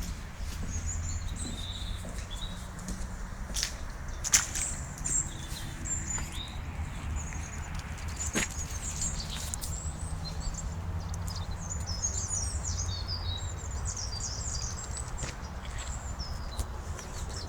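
Small birds chirping in quick, twittering phrases over a steady low rumble, with a few sharp clicks or knocks, the loudest about four seconds in.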